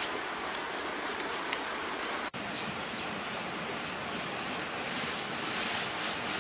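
Steady rushing of a nearby river, with a brief dropout about two seconds in.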